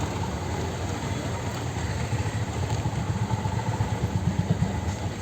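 Street traffic noise dominated by a nearby engine running with a low, rapid putter that grows louder in the second half.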